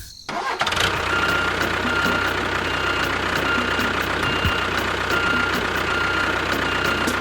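A motor running steadily with a constant whine and faint ticks about twice a second, after a brief drop-out right at the start.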